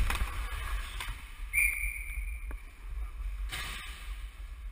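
Ice hockey game heard from a camera worn by a player: low rumble of movement on the microphone, skate blades scraping the ice and stick clicks. About a second and a half in, a sharp hit rings briefly with a high tone that fades over about a second.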